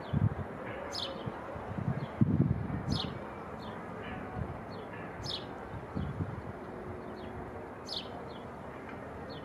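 A bird repeating a short, sharp chirp that falls in pitch, about once every two seconds, over a steady background hum broken by a few brief low rumbles.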